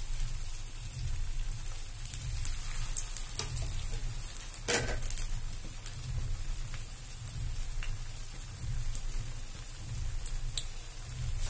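Aloo-gobhi tikkis shallow-frying in hot oil in a kadhai: steady sizzling with scattered crackling pops. About five seconds in comes a short, louder burst of sizzle as a third patty goes into the oil, over a low steady hum.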